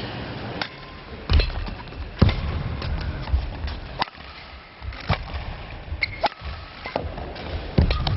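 Table tennis rally: the celluloid ball clicks sharply off the paddles and the table in an uneven series, roughly one hit every half second to a second.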